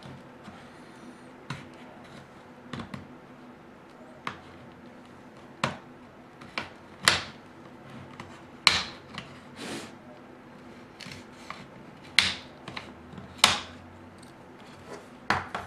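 Sharp plastic clicks and snaps as a pry tool works the trim piece off between an HP 14-cf0006dx laptop's screen and body, about a dozen spread irregularly, the loudest in the second half.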